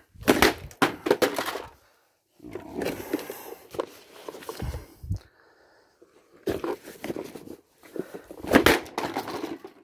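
A vacuum cleaner's plastic body is slammed down onto concrete several times to smash it apart: hard impacts near the start and again late on, the last the loudest, with rattling clatter of loose parts in between.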